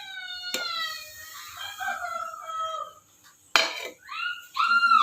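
A rooster crowing, one gliding call in the first second and another arched call near the end, with a sharp clatter about three and a half seconds in.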